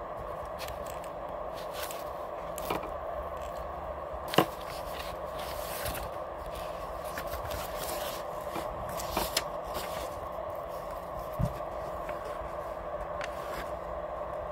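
Close handling noise of paper and a pencil: light scraping and scattered taps, with one sharp tap about four and a half seconds in and a dull knock near the end, over a steady background hum.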